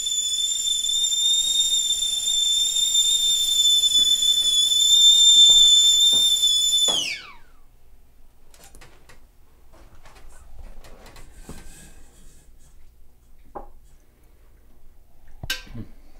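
A high, steady whistle that grows a little louder, then slides down in pitch and cuts off about seven seconds in. After that only a few faint clicks and knocks are heard.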